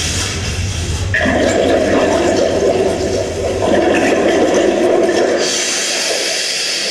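Loud rushing, gurgling water noise like a toilet flush, starting about a second in and thinning to a high hiss near the end.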